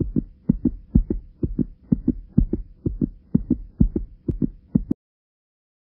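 Intro sound effect of paired, heartbeat-like thumps, about two pairs a second, over a faint steady hum; it cuts off suddenly near the end.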